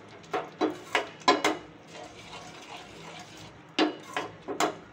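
Metal spoon scraping and clacking against a stainless steel pan while stirring thick, crumbly palkova near the end of its cooking. The knocks come unevenly, a cluster in the first second and a half, then quieter scraping, then more knocks near the end.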